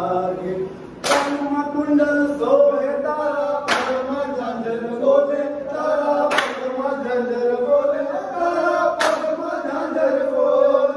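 Garba devotional song sung by voices, with a sharp clap about every two and a half seconds.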